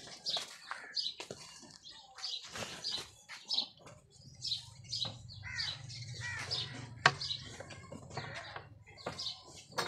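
Small birds chirping over and over, short high calls and a few quick downward sweeps, mixed with scattered sharp clicks and a faint low hum through the middle.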